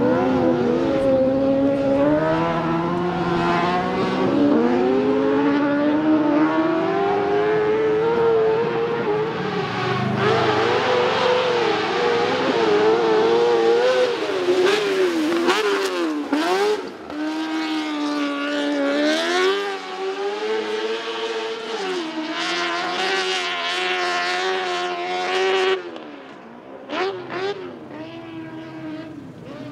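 Autocross buggy engines revving hard, the pitch repeatedly climbing and dropping with throttle and gear changes as the cars slide through the dirt. A few sharp cracks come midway, and the engine sound grows quieter for the last few seconds.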